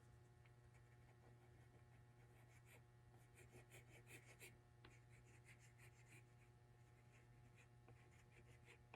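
Near silence: faint short scratching ticks, strongest a few seconds in, over a steady low electrical hum.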